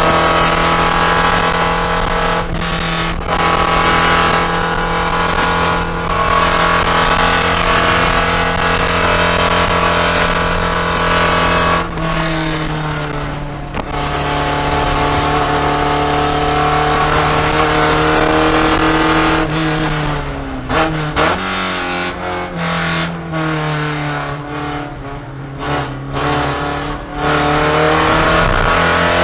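Porsche 944 Spec race car's four-cylinder engine heard from inside the cockpit, running hard at steady high revs in fifth gear with a brief lift about twelve seconds in. In the last third it brakes and downshifts to third: the pitch falls and breaks off several times, then rises again as it accelerates.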